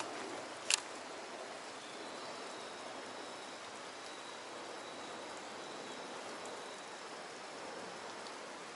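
Steady hiss of running water, with one sharp click about a second in.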